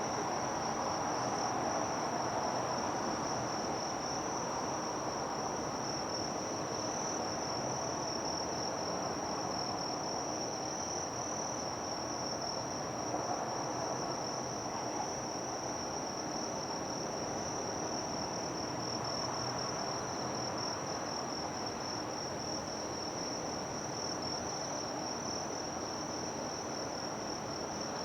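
Insects trilling without pause in a single high, finely pulsing note, over a steady murmur of distant noise.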